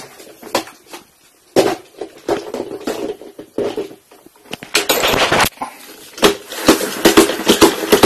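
Floor being wiped with a towel amid household handling: scattered knocks, a brief rubbing swish about five seconds in, then a run of clattering knocks near the end.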